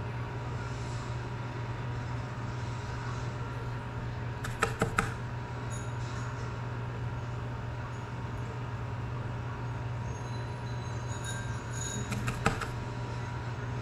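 Steady low hum and room noise with a faint high tone. A few light clicks of small tools being handled come about five seconds in and again near the end.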